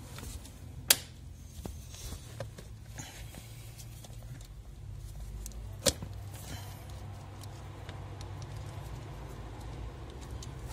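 Pliers cutting car wiring: two sharp snips about five seconds apart, with fainter ticks of wire handling between, over a low steady hum.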